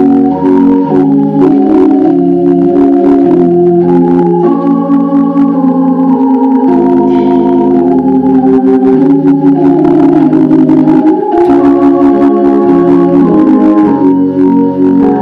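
Two-manual console organ played live: full, sustained chords held for a second or two each, moving from one chord to the next without a break.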